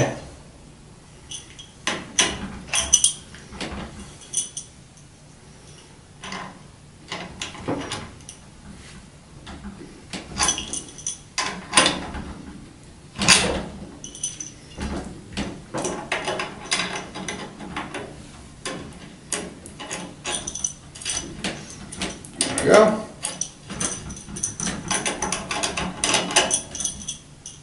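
A metal wrench clinking and scraping on a bicycle's rear axle nuts as they are tightened: irregular metallic clicks and taps with pauses between.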